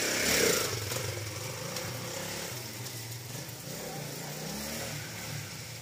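Trail motorcycle engine running, its pitch wavering and rising briefly near the end, and its level slowly fading.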